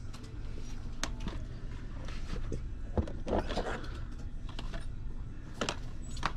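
Handling noise of a plastic game case being slid back onto a shelf: a few sharp clicks and a brief rattle about three seconds in, over a low steady hum.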